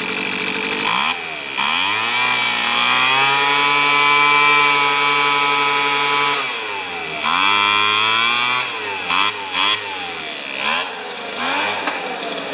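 Weed Eater leaf blower's small two-stroke engine running and being revved: it climbs to high speed and holds, drops back to idle, revs again, then gets a few short throttle blips. The revving is part of a carburetor tune-up on a blower that ran poorly.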